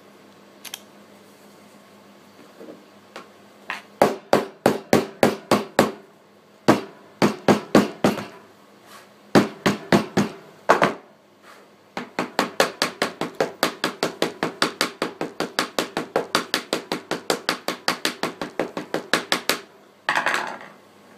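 Hammer repeatedly striking the screen of an iPhone fitted with an anti-shock screen protector, lying on a wooden desk. First a few light taps, then groups of rapid blows, then a long even run of about four blows a second. It ends in a short scraping noise.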